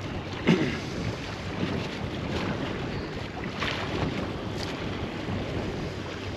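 Wind buffeting the microphone over small choppy waves lapping and slapping against a small boat's hull, with a sharper knock about half a second in and a few lighter slaps after.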